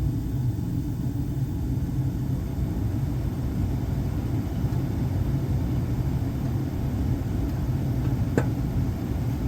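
HVAC equipment running with a steady low rumble, and a single sharp pop about eight seconds in: the popping noise being checked.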